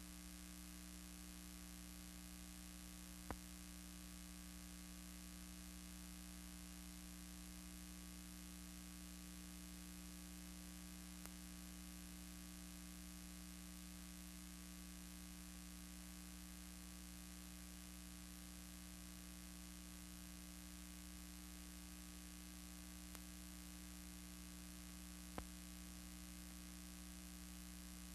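Faint, steady electrical hum with light hiss, near silence, broken by two soft clicks, one about three seconds in and one near the end. No aircraft or rotor sound is heard.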